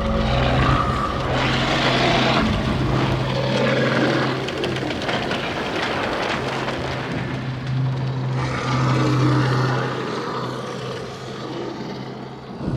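Sound-designed horror ambience: a steady low drone under noisy swells that rise and fall several times, with a brief dip near the end.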